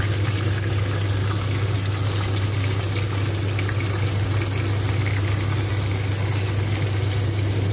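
Marinated squid and its sauce sizzling and bubbling in a hot wok as it is added, a steady frying hiss with light crackling, over a constant low hum.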